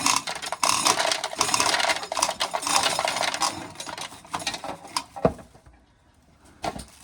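Corn sheller stripping an ear of corn: a dense rattle of dry kernels clattering down, which thins out and stops about four to five seconds in, followed by a couple of separate knocks.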